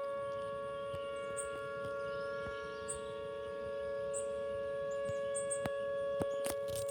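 Tornado warning siren sounding a steady tone at one unchanging pitch, with a few faint clicks.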